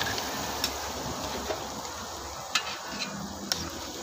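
Pork trotters sautéing with onion and ginger in a wide metal wok: a steady sizzle, with four sharp clinks of a metal ladle knocking against the pan as it stirs.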